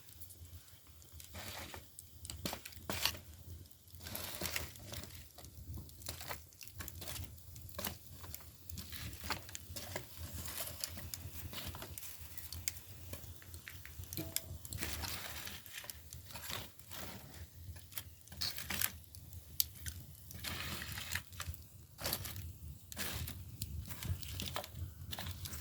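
Split bamboo firewood burning in a traditional agungi firebox, crackling and popping irregularly over a low steady rumble.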